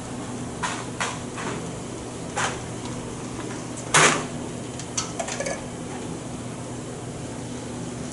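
Scattered clicks and knocks of hands working plastic pneumatic air tubing and push-in fittings on a pneumatics training board, the loudest a sharp knock about four seconds in and a quick cluster about a second later, over a steady low hum.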